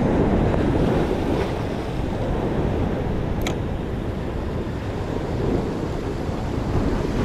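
Ocean surf washing against a rock ledge, with wind buffeting the microphone: a steady, loud rushing noise. A single sharp click sounds about three and a half seconds in.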